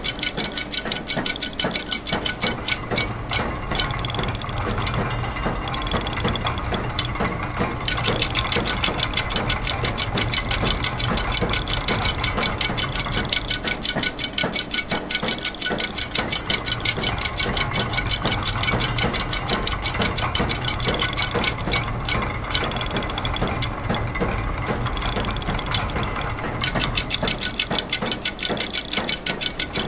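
Layered loops of machine sounds: rapid ratchet and gear clicking over a steady low mechanical hum, the loops overlapping into an uneven rhythm. The sharpest high clicking drops out for a few seconds now and then.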